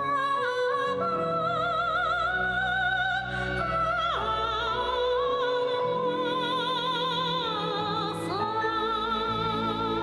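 A high soprano voice singing long held notes with a wide vibrato in operatic style, over an instrumental accompaniment. The voice slides down between notes about four seconds in and again near eight seconds.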